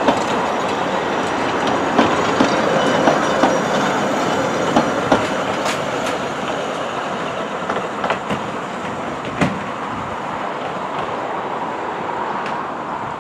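Talyllyn Railway narrow-gauge passenger carriages rolling past close by, wheels rattling and clicking irregularly over the rail joints. The sound fades gradually in the second half as the last carriage draws away.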